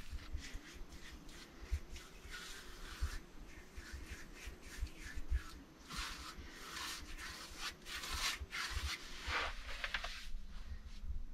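Paintbrush bristles rubbing over a clay-plastered stove in a run of irregular back-and-forth strokes as it is painted white. The strokes stop shortly before the end.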